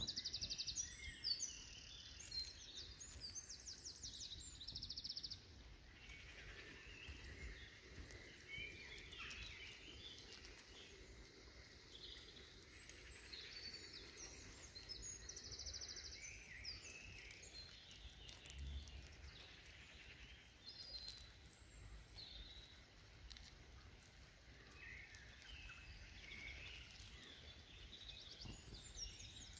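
Faint high-pitched bird calls in short repeated bursts, with softer chirps between them, over a low wind rumble.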